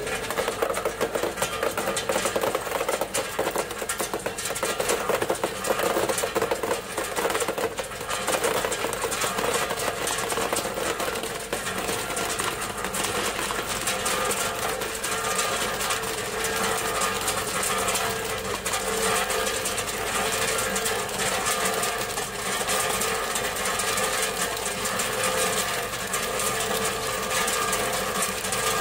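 Tube ice sliding out of a tube ice machine's outlet and falling into a plastic basin: a dense, continuous clatter of ice pieces, thickest in the first dozen seconds, during the machine's harvest cycle. Under it runs the steady sound of the machine's 10 hp Refcomp piston compressor.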